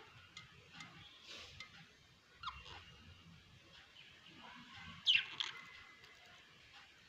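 Cockatiel giving two short chirps while sleeping, one about two and a half seconds in and a louder one about five seconds in.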